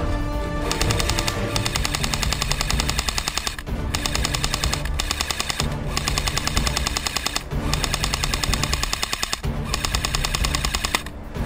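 Airsoft rifle firing on full auto, a fast even rattle of shots in about six long bursts with short pauses between them, stopping just before the end.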